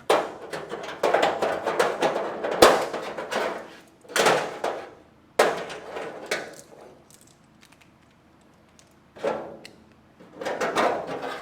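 Workshop handling noises as metal body parts and tools are moved about: three sharp knocks, the first at the start, the others about 2.7 and 5.4 seconds in, with scraping and rustling between them and again near the end.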